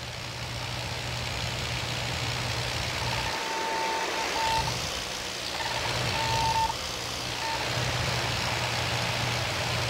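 Steady engine drone with a low hum and hiss. A high beeping tone sounds in short broken runs about three seconds in and again around six seconds in.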